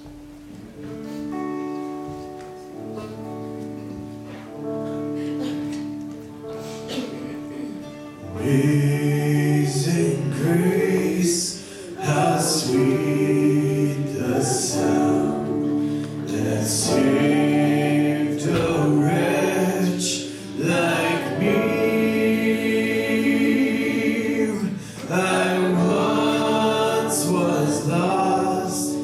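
Live worship band playing a gospel song: a soft instrumental intro on guitars, then about eight seconds in the full band comes in loud and a woman sings the lead.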